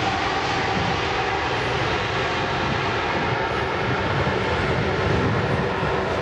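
Airbus A380-800's four Rolls-Royce Trent turbofan engines running steadily as the airliner rolls along the runway: a continuous jet rush with a faint whine.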